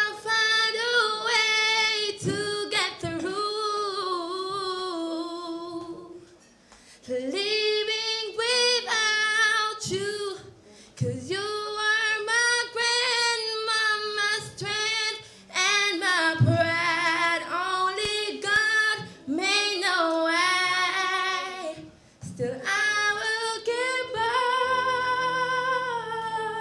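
A woman singing a slow memorial song solo into a handheld microphone, in long held phrases with short breaks for breath.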